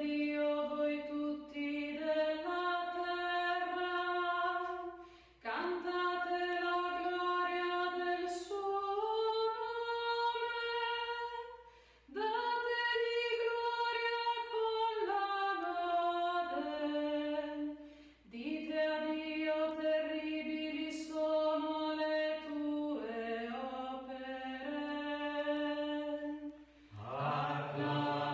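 A woman sings the responsorial psalm unaccompanied in long, held chant-like phrases, with short pauses for breath between them. Near the end a lower voice joins in.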